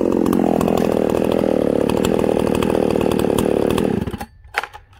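Ported Husqvarna 288 XP two-stroke chainsaw running at high revs, then cutting out abruptly about four seconds in, followed by a sharp clack.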